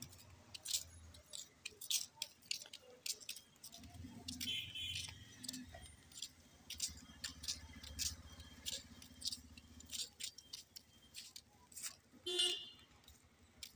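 Street noise: an irregular run of sharp clicks and ticks, two or three a second. A vehicle's low engine hum passes through the middle, and a short high tone comes near the end.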